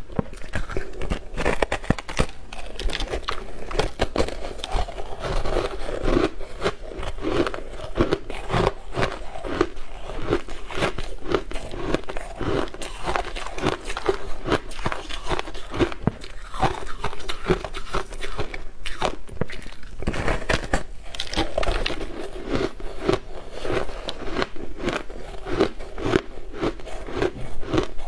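Frosty crystalline ice being bitten and chewed close to the microphone: a dense, continuous run of crisp crunches and crackles, bite after bite.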